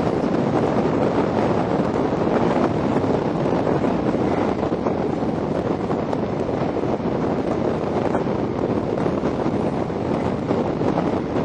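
Wind rushing over the microphone held out of the window of a Mk3 coach at speed, over the steady running noise of the train's wheels on the track.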